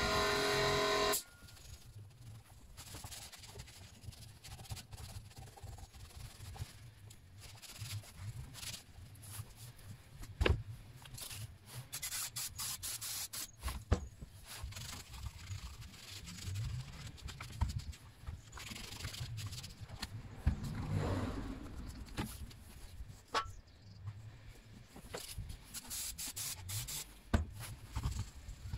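A loud, steady drone with many even tones stops abruptly about a second in. After it come irregular rubbing and scraping from hand cleaning of a Stihl MS 231 C chainsaw, with scattered knocks and a few sharp clicks.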